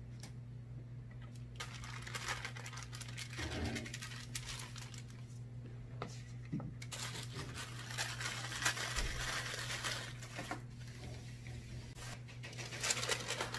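Metal spoon scraping a sticky chocolate-biscuit mixture out of a bowl onto parchment paper, in scratchy stretches with paper crinkling, easing off near the end before a last flurry. A steady low hum runs underneath.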